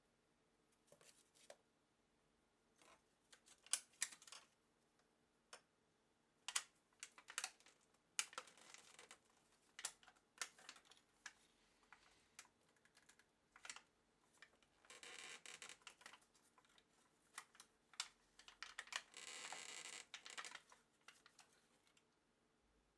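Faint, scattered clicks and taps of hands and tools handling an electronic instrument's metal case and parts during disassembly. There are two longer scraping or rustling stretches, one about fifteen seconds in and one about nineteen seconds in.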